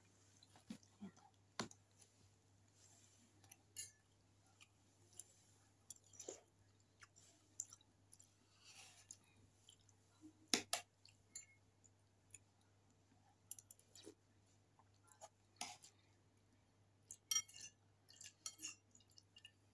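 Sounds of someone eating: scattered, irregular clicks and light clinks of a utensil on a metal bowl, with soft chewing and mouth noises, against a near-silent room.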